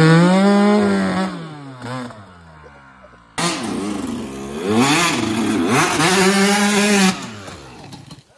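Dirt bike engine revving, its pitch sweeping up and falling away in long glides: one rev peak right at the start, then a second run of revs that climbs and holds high for about two seconds before cutting off near the end.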